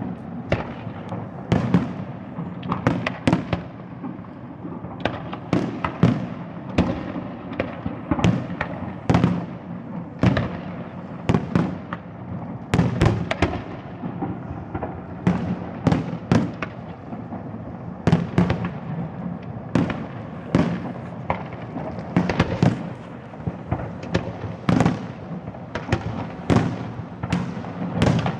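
Fireworks display: a rapid, continuous series of shell bursts and bangs, each followed by a rumbling echo.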